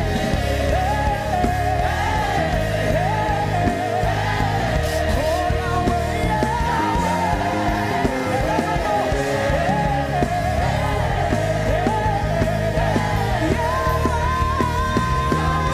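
Worship music: a singer's melody over a full band with a steady bass, rising to a long held note near the end.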